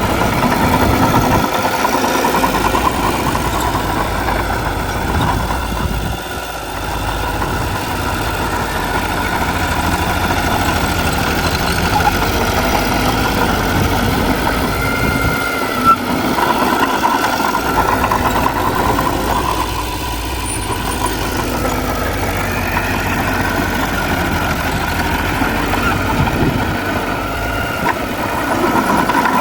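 Diesel engines of heavy earthmoving machinery, a bulldozer and dump trucks, running continuously with a pitch that slowly rises and falls. One short sharp knock comes about halfway through.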